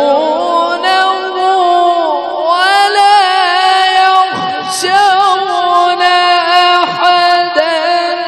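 A male Quran reciter's voice, amplified through a handheld microphone, holds one long melodic note. The note rises at the start, then is drawn out with wavering ornaments: the prolonged vowel of 'wa yakhshawnahu' in tilawat.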